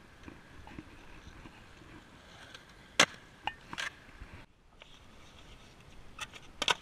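Skateboard on concrete: one sharp, loud clack of the board about three seconds in, a few lighter clacks just after, and a quick run of clacks near the end.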